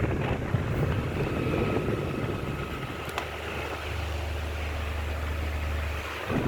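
Mondial 30 cm table fan running, a loud rushing noise with a low rumble; about three seconds in a steadier low hum sets in, then shifts again just before the end.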